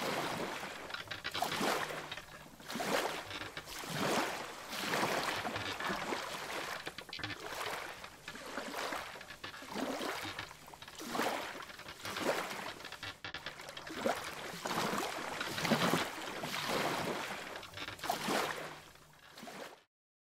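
Water splashing and washing in repeated surges about every second and a half, over a faint steady low hum; it cuts off suddenly just before the end.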